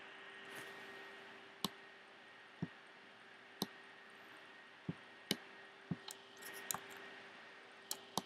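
Computer mouse button clicks: about a dozen faint, sharp single clicks, some about a second apart and some in quick pairs, over a faint steady hum.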